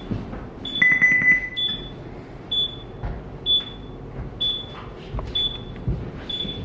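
Electronic alarm on a ship's bridge console beeping: a short high beep about once a second, with one longer, lower beep about a second in. A few faint knocks sit underneath.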